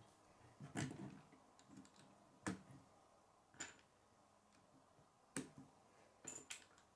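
Plastic K'nex rods and connectors clicking as they are handled and snapped together: a handful of faint, sharp clicks at uneven intervals, two in quick succession near the end.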